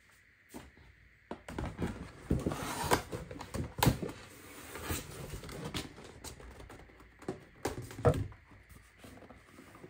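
Paper shopping bag rustling and crinkling as a cardboard box is pulled out of it, with scattered knocks, then a thump as the box is set down on a table near the end.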